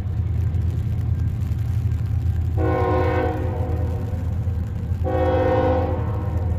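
Diesel freight locomotive's air horn sounding two blasts, a short one about two and a half seconds in and a longer one about five seconds in, over the train's steady low rumble.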